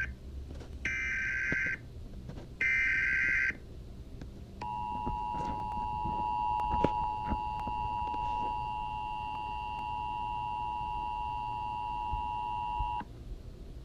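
Emergency Alert System sequence: three short data header bursts, about a second each, then the steady two-tone attention signal held for about eight seconds and cut off sharply.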